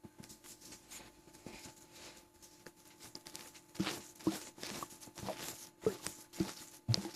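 Short, irregular gurgles and clicks from a stomach bloated with gulped water and air, a few louder ones in the second half.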